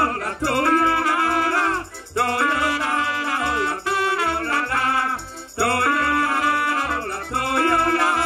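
Kurpian folk band playing live: accordion, double bass and a clarinet, with a woman singing. The song comes in phrases broken by short pauses, over a steady bass beat.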